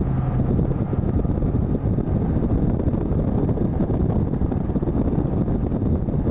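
Four-wheel-drive vehicle driving across desert sand, heard from inside the cabin: a steady low rumble of engine and tyres with wind noise.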